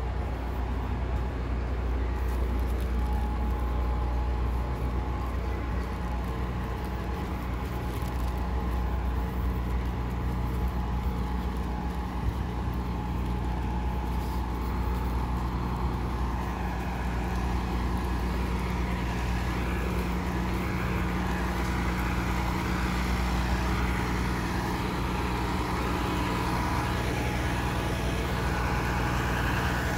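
Idling diesel engines, a steady low hum, with more mid-pitched engine and traffic noise building from about halfway through.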